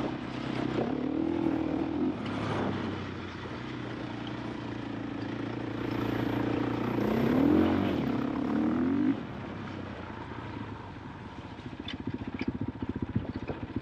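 KTM 500 EXC-F's single-cylinder four-stroke engine running on a trail, its revs rising twice, then dropping suddenly about nine seconds in to a quieter, evenly pulsing idle.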